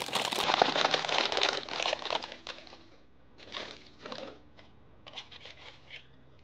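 Paper takeaway bag crinkling loudly as it is handled and opened for about two and a half seconds, then a few shorter, softer paper rustles.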